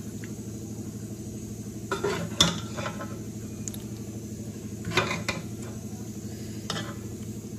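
A metal serving spoon knocking and scraping against the side of an aluminium cooking pot while spooning and spreading masala over rice. A few sharp clinks come about two, two and a half and five seconds in, over a steady low hum.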